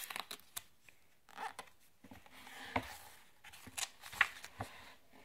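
A page of a hardcover graphic novel being turned by hand: paper rustling and scraping in several short, irregular strokes.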